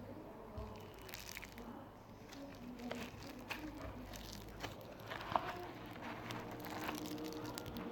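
Slime being squeezed and worked by hand, making scattered small clicks and crackles.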